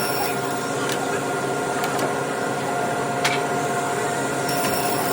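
Steady machine hum over an even hiss, holding several fixed tones, with one sharp click about three seconds in.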